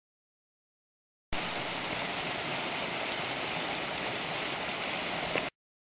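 Silence, then a small mountain stream rushing over rocks: a steady water noise that starts abruptly about a second in and cuts off abruptly shortly before the end.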